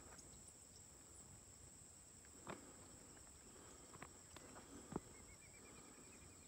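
Faint, steady high-pitched drone of insects such as crickets, broken by a few soft clicks and knocks, the loudest about five seconds in. Near the end a quick run of short high chirps joins in.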